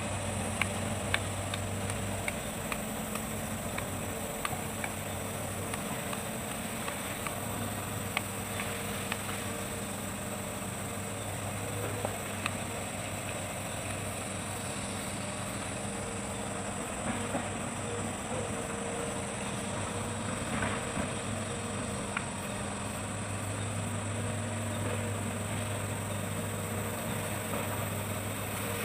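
Hitachi hydraulic excavator's diesel engine running steadily, with scattered sharp clicks and cracks. The low engine hum weakens for a stretch partway through, then comes back.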